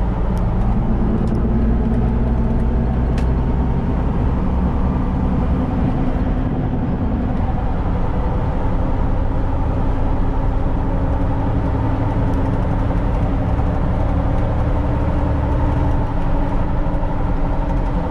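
Cabin noise of a Jeep Wrangler TJ cruising at highway speed on aggressive Super Swamper TrXus M/T mud-terrain tires, heard from inside with the windows up. A steady drone of tire hum, road noise and the 4.0-litre straight-six engine.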